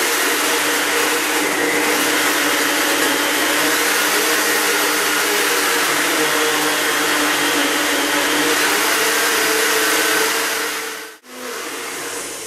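Countertop blender running at full speed, blending a liquid green smoothie: a steady, loud motor whine that winds down about ten seconds in as the blending program ends.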